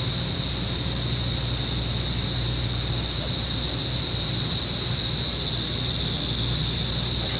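Steady outdoor insect chorus, a continuous high buzz, over a low steady hum.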